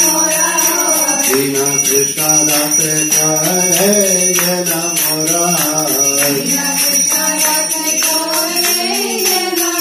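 Women singing a devotional aarti together in unison, with a hand bell rung steadily throughout.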